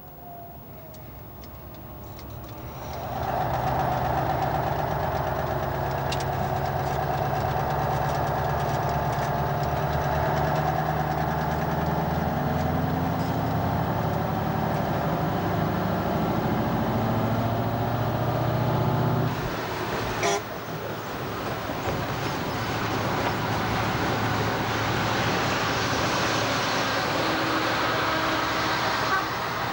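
Diesel lorry engine heard from inside the cab, pulling steadily with its pitch slowly rising, then dropping at a gear change about two-thirds of the way through, with a short click just after. Road and wind noise grow stronger toward the end.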